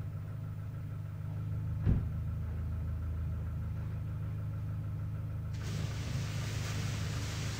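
Curtain drive made from a washing-machine motor: a steady low electrical hum, with a single click about two seconds in; about five and a half seconds in a steady hiss joins the hum and carries on.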